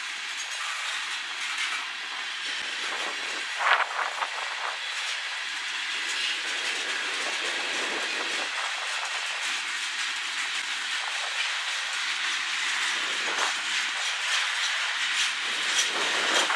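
Freight cars rolling past on steel wheels: tank cars, then flatcars. A steady rush of wheel-on-rail noise carries the clickety-clack of wheels passing over rail joints, loudest about four seconds in and again near the end.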